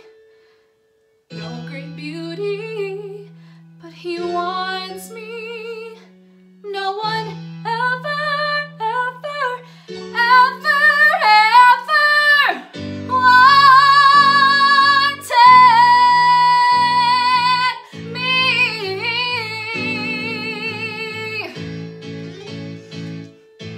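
A young woman sings a show tune over instrumental accompaniment, holding long notes with vibrato. The song starts again after about a second's pause, and the accompaniment grows fuller about halfway through.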